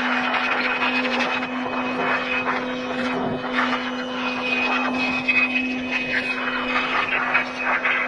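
Handheld electric air blower running at a steady pitch, its motor hum over a rush of air, as it blows water out of a washed steel PC case chassis to dry it.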